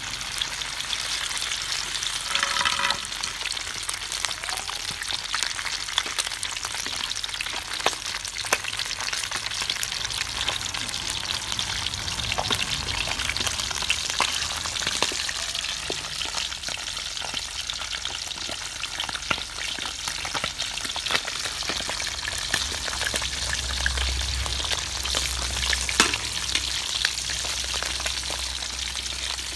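Small whole fish frying in hot oil in a metal wok: a steady sizzle full of small pops and crackles. There is one sharp knock near the end.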